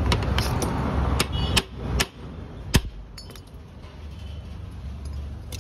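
A hammer striking metal about six times in the first three seconds, one blow ringing briefly and the last the loudest, over steady traffic noise that drops away after about two seconds.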